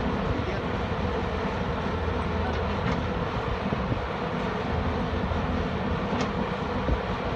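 Heavy diesel engine running steadily with a low, even rumble, and a few faint ticks over it.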